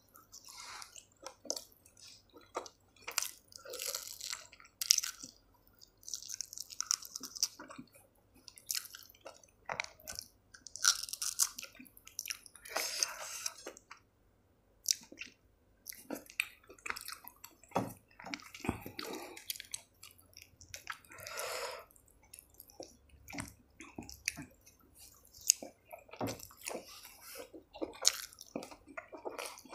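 A person chewing mouthfuls of paratha, with irregular wet smacks and mouth clicks.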